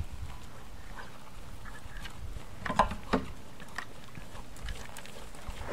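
An Azteca mare's soft hoofbeats on sand arena footing, under a low wind rumble on the microphone, with two short, louder sounds close together about three seconds in.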